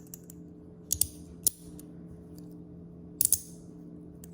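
Fidget slider being slid back and forth, giving a few sharp clicks as it snaps into place: a pair about a second in, another half a second later, and a quick cluster just after three seconds.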